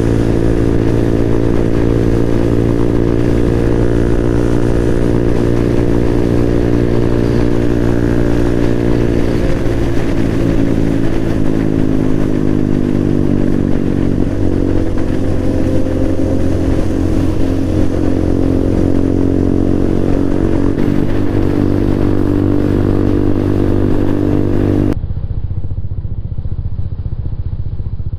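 Motorcycle engine running at a steady cruise, its note mostly holding level with a few gentle rises and falls in pitch through the middle. Near the end the sound turns muffled for a few seconds.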